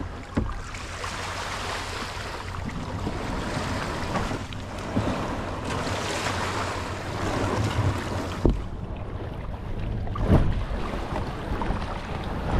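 Small waves washing on the shore and wind on the microphone, as a fishing kayak is dragged over sand into the shallows. A few knocks from the kayak being handled, the loudest about eight and a half and ten seconds in.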